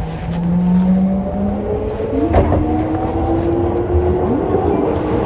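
Seibu 6000 series electric train's traction motors and inverter whining as it accelerates: a steady tone, then several tones climbing in pitch over the rumble of the running gear, with a single knock about two seconds in.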